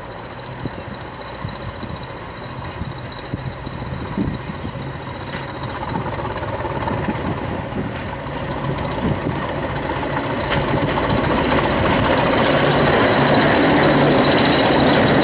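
Two Class 20 diesel locomotives working in multiple, approaching and passing close by, their English Electric engines running with a steady high whistle over the engine note. They grow steadily louder to a peak as they pass, with a few sharp clicks of wheels over the rail joints.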